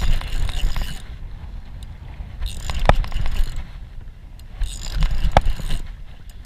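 Large spinning reel being cranked to wind in line, in three bursts about a second long each, over a low rumble.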